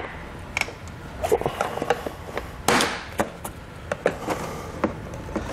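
Plastic clips popping and the plastic air dam housing of a 2020 Ford Escape clattering as a flat-blade screwdriver pries it free from under the front bumper. Scattered clicks and knocks, the loudest a sharp crack about two and a half seconds in.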